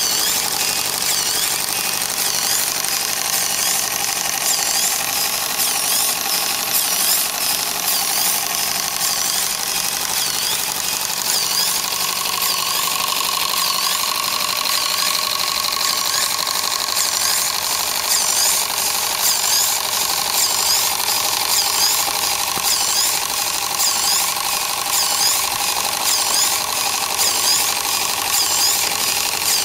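Model live-steam plant running: a small steam-driven boiler water pump works with a rapid mechanical clatter and repeated high squeaks over a steady steam hiss. A whistling tone grows and rises slightly about twelve seconds in.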